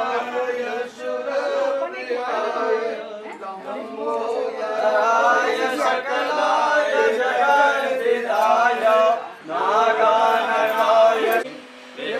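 Male voices chanting together in a sung devotional recitation, with brief pauses partway through and near the end.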